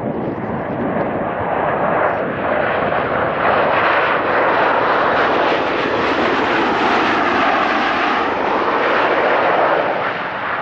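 Low-flying military aircraft passing close by: a loud roar that builds over the first few seconds, holds with a sweeping, swirling tone, and starts to fall away at the very end.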